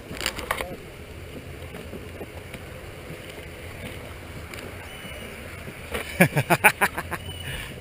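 Steady low wind and handling rumble on a body-worn camera's microphone, with a quick run of loud knocks about six seconds in.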